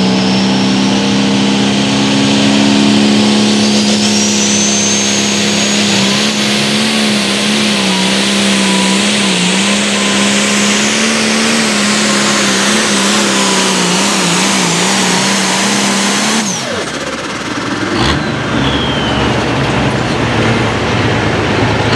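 Diesel engine of a Limited Pro Stock pulling tractor run hard under load down the track, its steady note wavering up and down as it hauls the sled. A high whine rises a few seconds in. About sixteen seconds in the note drops away abruptly, and a lower, rougher engine note from another pulling tractor follows.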